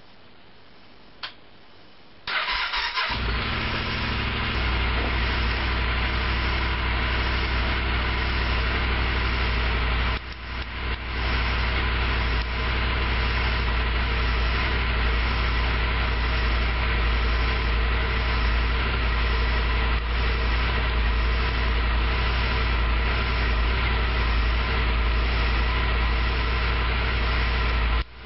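Yamaha XT1200Z Super Ténéré's parallel-twin engine being started: a click about a second in, under a second of electric-starter cranking, then the engine catches and settles into a steady idle.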